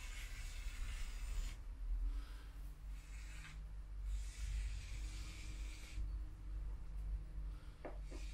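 Polyurethane foam gun dispensing expanding foam in hissing spurts as the trigger is squeezed: a longer spurt at the start, a short one about three seconds in, and another longer one from about four to six seconds.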